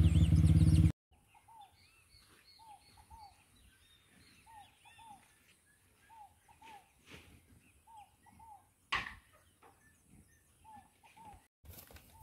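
A dirt bike's engine runs steadily for about the first second, then cuts off abruptly. Faint birdsong follows: a repeated two-note call about once a second, with higher chirps and a single sharp knock about nine seconds in.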